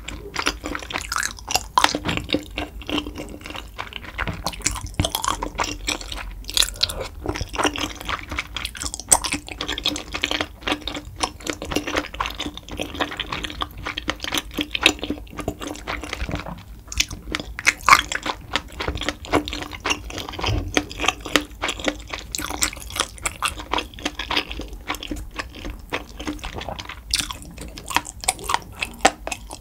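Close-miked chewing of tteokbokki, chewy rice cakes in spicy broth, with steady mouth clicks and smacks throughout.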